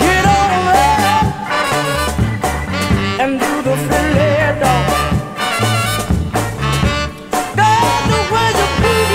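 Upbeat funk-soul music with a pulsing bass line and a wavering melody over it.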